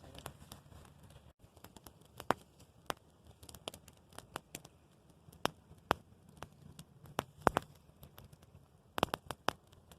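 Wood campfire crackling: irregular sharp snaps and pops from the burning firewood, with a few louder pops, one cluster near the end.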